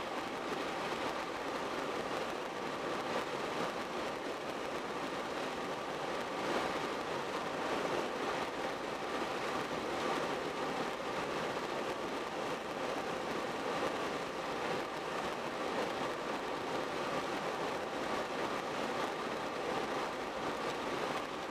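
Steady tyre and road noise from a car cruising at an even speed, a constant rushing sound with a faint steady hum under it.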